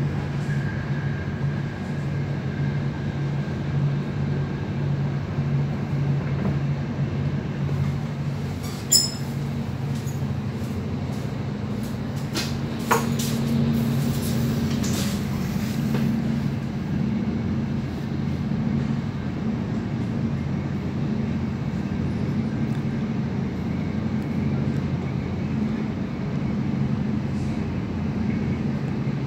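Interior running noise of an NS VIRMm double-deck electric train at speed: a steady rumble with a low hum, and two brief sharp clicks about nine and thirteen seconds in.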